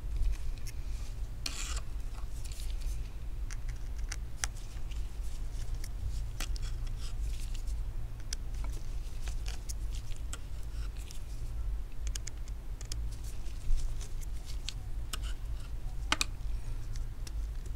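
Small clicks and scratches of a precision Phillips screwdriver backing tiny screws out of the metal bracket inside an iPhone 8, scattered and irregular, over a steady low hum.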